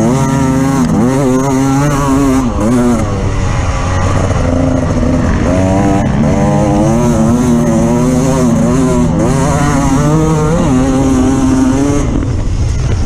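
Off-road vehicle engine under load, its pitch repeatedly rising and falling as the throttle is worked over rough terrain, easing off near the end.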